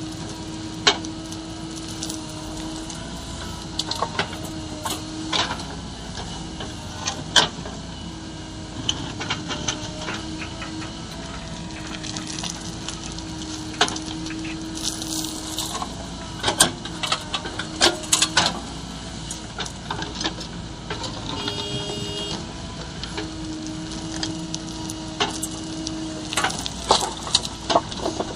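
JCB 3DX backhoe loader's diesel engine running under work, with a steady whine that wavers in pitch and drops out now and then, and frequent sharp knocks and clanks as it digs and loads mud.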